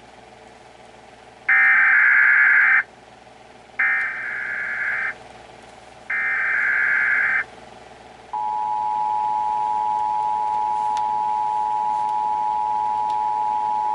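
Emergency Alert System header: three bursts of the digital SAME data tones, each a little over a second long with about a second's pause between them, then the steady two-tone EAS attention signal starts about eight seconds in and holds.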